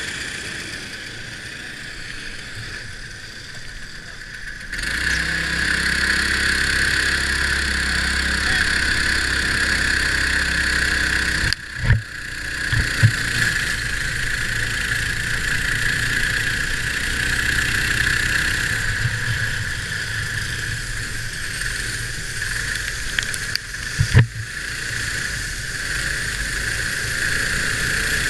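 Sealed Predator 212 single-cylinder engine of a dirt-track racing kart running, heard from the kart itself; it gets much louder about five seconds in and runs steadily. Twice the sound drops out briefly with a sharp knock.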